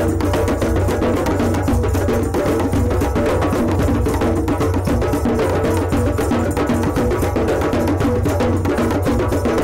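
A drum circle of many hand drums playing together in a dense, unbroken rhythm at a steady loudness.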